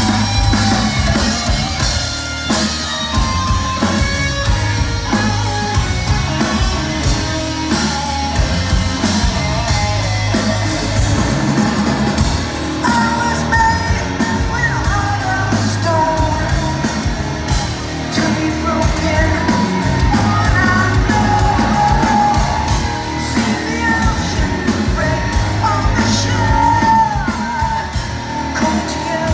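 Live rock band playing at full volume, with electric guitar, bass and drums under a male lead singer, heard from within the audience in a large hall.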